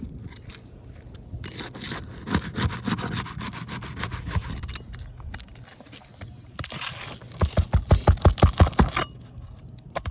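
Metal roof snake scraping under asphalt shingles as it is worked against a nail. Near the end it makes a fast run of about ten sharp knocks in a second and a half, the tool worked against a nail to pull it.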